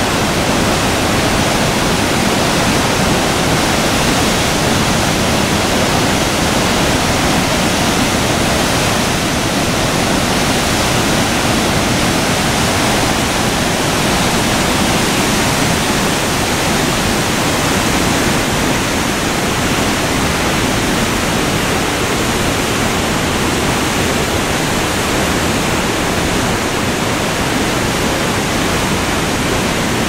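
Waterfall with a drop of about 15 metres pouring into its plunge pool: a loud, steady rush of white water that never lets up.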